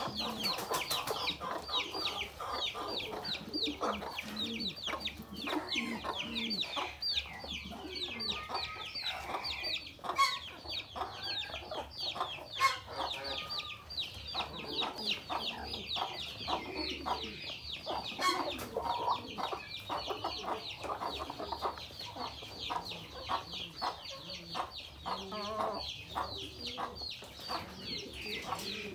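Flock of chickens feeding: continuous rapid high falling peeps over low clucking. There are a few sharp knocks, the loudest about halfway through.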